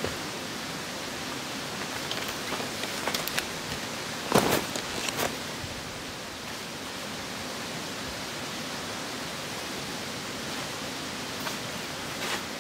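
Steady hiss of outdoor background noise, with a few sharp clicks and a brief louder rustle about four seconds in.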